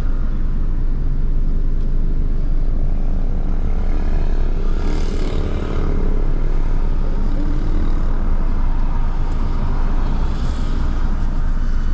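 Steady low rumble of motor vehicles at a roadside filling station, with two brief hissing swells about five and ten and a half seconds in.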